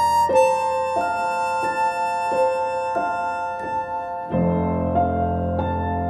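Slow, gentle piano music: single notes struck evenly, about three every two seconds, each ringing on over held tones. About four seconds in, a lower chord comes in and the music takes on a darker, fuller sound.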